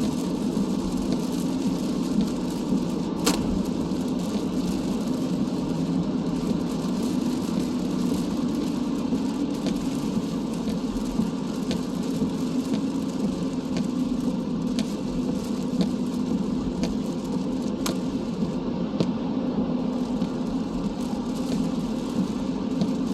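Steady road and engine drone heard from inside a moving car's cabin, with the hiss of tyres on a rain-wet road. A couple of single sharp ticks stand out, about 3 seconds in and again near the end.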